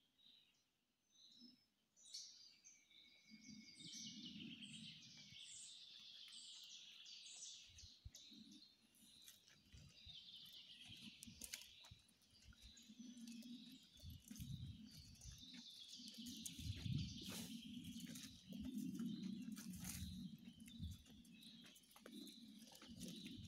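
Many small birds chirping and trilling in the woodland canopy, faint, with the first two seconds almost silent. From about two seconds in, there are footsteps and rustling of leaves and undergrowth along a dirt path.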